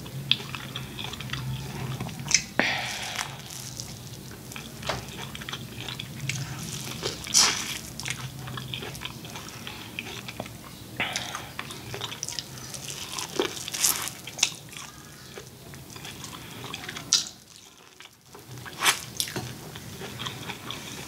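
Eating corn on the cob: biting kernels off the cob, with wet chewing and lip-smacking. A few sharp mouth clicks stand out over the steady chewing.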